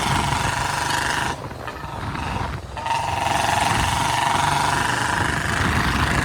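Royal Enfield Bullet Standard 350's single-cylinder engine running through a C-bend exhaust pipe with a rapid thumping beat, revved up. It eases off about a second in and picks up again near three seconds in.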